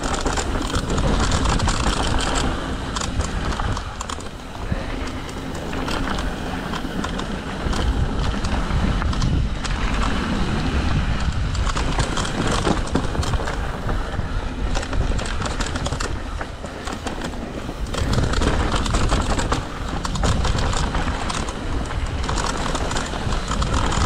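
Mountain bike descending a dirt and gravel trail: wind rumbling on the camera's microphone, with the tyres crunching over the dirt and the bike rattling and clicking over the bumps.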